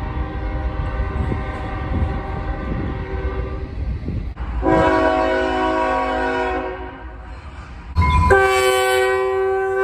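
Multi-chime train horns sounding chords of several notes at once, in three blasts: a long one over the low rumble of the train that stops abruptly about four seconds in, a second of about two seconds soon after, and a third that starts loud near the end.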